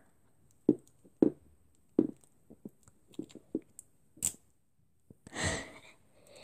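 Plastic toy packaging being handled and pulled at by hand: scattered faint taps and clicks, with one sharper click about four seconds in. A longer, softer noise follows near the end.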